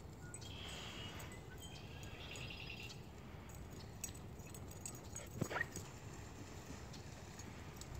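Dogs whining and yipping while they play: thin high whines in the first three seconds and one sharp yelp about five and a half seconds in. A steady low rumble lies underneath.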